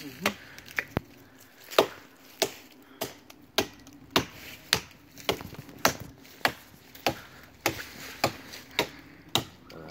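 Axe chopping into the trunk of a small standing tree: a steady run of sharp woody blows, nearly two a second.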